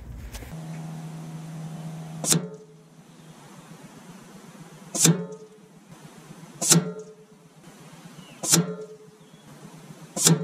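Background music: a held low note, then five sharply plucked notes about every two seconds, each ringing briefly.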